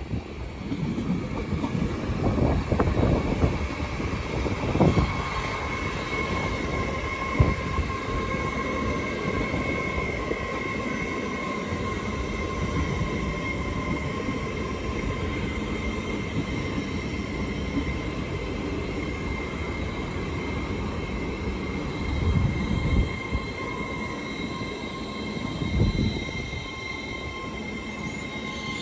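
Two coupled Hull Trains Class 802 multiple units pulling into a station: a low rumble of wheels on track, with a steady high-pitched squeal of two tones that sets in about five seconds in and holds until near the end.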